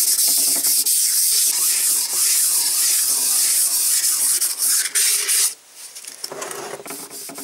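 Fine sandpaper scrubbing the bore of a cast-iron engine cylinder liner: a loud, steady, harsh rasping that stops about five and a half seconds in, followed by lighter, quieter rubbing strokes. It is a finishing pass that smooths the deepest hone scratches while leaving the deglazed cross-hatch.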